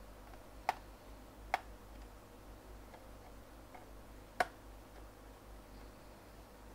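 A few sharp clicks of a Phillips screwdriver against the screws and plastic base of a Sony Vaio netbook as its screws are undone. Three clear clicks come under a second, about a second and a half, and about four and a half seconds in, with a couple of fainter ticks between them.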